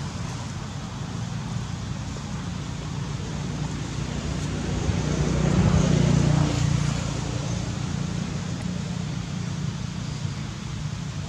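Steady outdoor background rumble that swells louder for about two seconds near the middle, then settles back.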